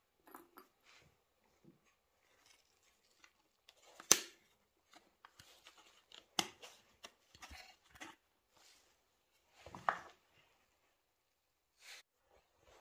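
Faint scattered clicks and taps of small metal rivets and plastic cover parts being handled. There is a sharper knock about four seconds in and another about six seconds in.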